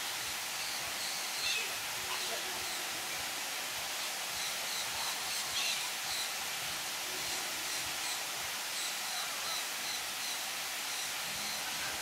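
Steady outdoor hiss with a bird's short, high chirps repeated several times a second, most through the middle of the stretch.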